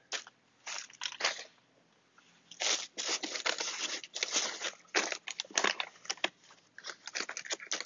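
Crumpled kraft packing paper and plastic foam wrap crinkling and rustling as hands dig through a cardboard shipping box, in irregular bursts with a short pause about two seconds in.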